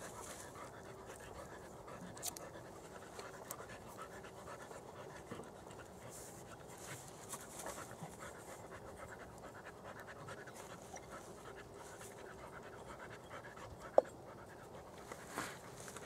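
A dog panting steadily, with small handling ticks and one sharp click near the end.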